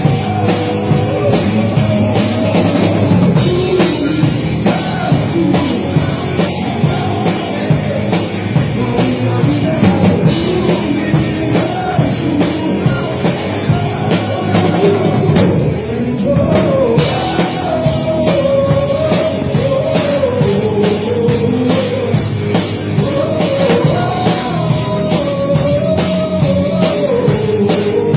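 Live band playing rock-style worship music with a full drum kit, with a wavering lead melody line over the top that grows more prominent in the second half.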